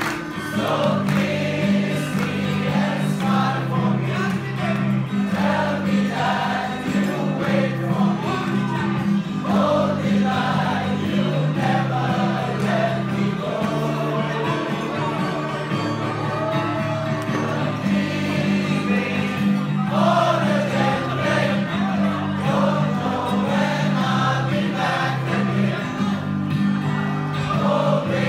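A large group of dining-room waiters and staff singing a farewell song together in chorus, with steady sustained low notes of musical accompaniment beneath the voices.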